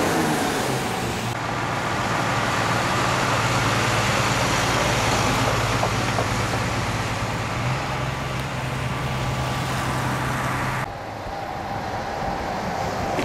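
Heavy vehicles idling with a steady low engine hum over a broad hiss of roadway noise. The sound changes abruptly twice, about a second in and near the end.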